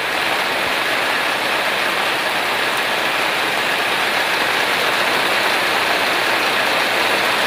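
Steady, even rushing of water, with no pitch or rhythm to it.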